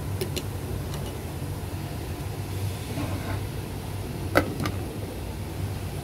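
Steady low hum from the gas-stove kitchen under a simmering pot of soup, with light taps of chopsticks against the pot near the start. A sharp clink about four seconds in, followed by a smaller one, as a glass lid is set on the metal pot.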